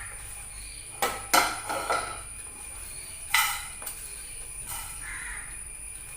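Whole spices and small bowls clattering as they are tipped into a pan: a quick run of sharp knocks about a second in, and another sharp knock a little past three seconds.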